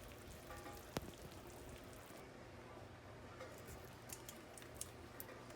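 Near silence: faint room tone with a sharp click about a second in and a few soft ticks later.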